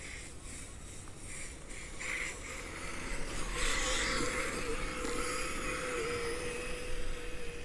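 Radio-controlled Kyosho Blizzard tracked snow cat with a brushless motor running under throttle, giving a steady electric whine that comes in about two seconds in and wavers slightly in pitch.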